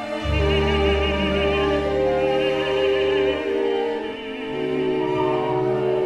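Operatic tenor singing with vibrato over a symphony orchestra. He holds a long note through the first half, then moves to shorter notes. The orchestra's low sustained bass notes break off about midway and come back shortly after.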